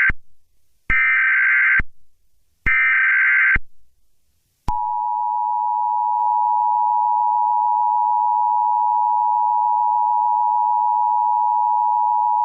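Emergency Alert System SAME header: the end of the first data burst, then two more buzzing data bursts, each just under a second long. About five seconds in, the steady two-tone EAS attention signal starts and holds to the end.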